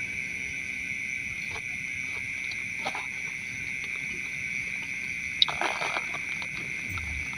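Crickets trilling steadily in the night grass. About five and a half seconds in there is a sharp click, followed by a brief rustle.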